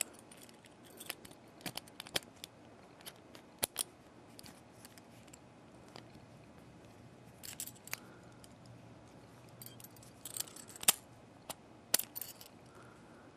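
Vintage US mail registered padlock being operated with its flat steel key: scattered sharp metallic clicks and light scrapes as the key is worked and the lock turned, advancing its mechanical counter. The loudest clicks come a little under four seconds in and twice near the end.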